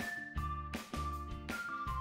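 Background music: a melody of short notes over a steady beat of about three beats a second.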